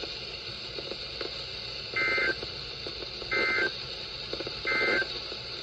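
Emergency Alert System end-of-message code: three short bursts of two-tone data squeal, about 1.3 seconds apart, closing the broadcast warning. A faint radio hiss with light crackle runs between the bursts.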